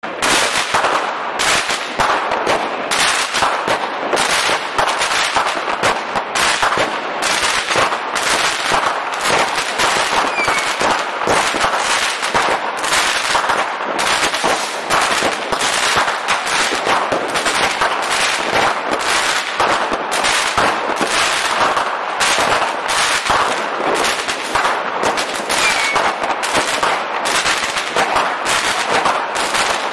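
Fireworks going off in a dense, rapid barrage of bangs and crackling, starting suddenly out of silence.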